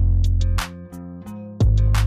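Background music: plucked guitar-like notes over heavy bass notes, with a new bass note coming in about one and a half seconds in and light percussion ticks.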